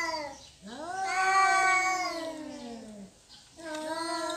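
Cats yowling in a territorial standoff: long, drawn-out wails that rise and then slowly slide down in pitch. One wail ends just after the start, a second runs to about three seconds in, and a third begins shortly after.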